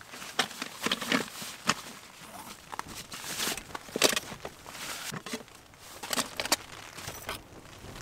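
Nylon stuff sack rustling and metal pots of a Trangia cook set knocking together as the set is pulled out and unpacked, an irregular run of short rustles and clinks.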